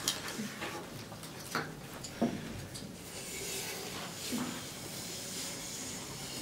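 Chalk in a wooden blackboard compass scraping across the blackboard as a circle is drawn, a faint scratchy hiss, after a couple of light knocks as the compass is set against the board.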